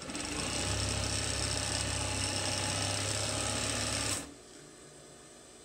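Pfaff 463 industrial single-needle lockstitch sewing machine stitching a strip of binding onto canvas at a steady speed, with a low motor hum under the needle noise. It stops abruptly about four seconds in.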